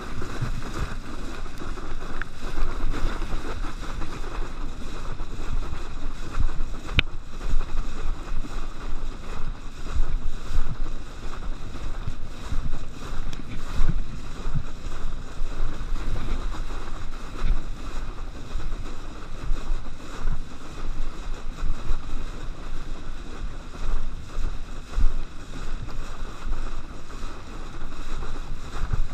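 Wind buffeting an action camera's microphone and water hissing and slapping as a kneeboard is towed fast through a boat's wake: a steady, gusty rush with a deep rumble that surges and dips, and one brief click about seven seconds in.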